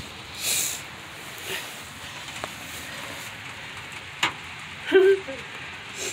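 Steady hiss of heavy rain on the wooden coop, with a brief higher rush about half a second in, a sharp click after about four seconds, and a short louder sound about five seconds in, amid the handling of the phone.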